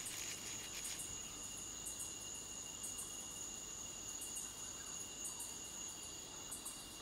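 Steady chorus of crickets trilling at two high pitches, over a faint even hiss of night-time forest ambience.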